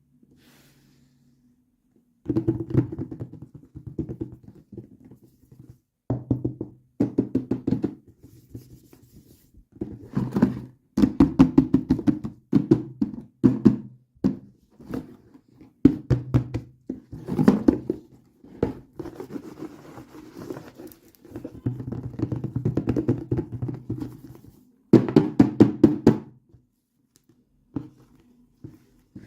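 Hands handling and opening plastic toy packaging: bursts of rapid clicking, tapping and knocking with short pauses between them.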